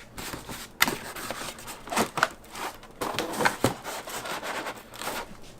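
Toy helmet's box packaging being opened by hand: irregular rustling and scraping broken by sharp clicks and snaps.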